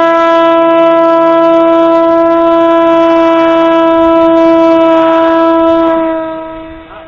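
Parrot Disco's electric motor and pusher propeller buzzing loudly at a steady pitch, then fading and dropping slightly in pitch about six seconds in.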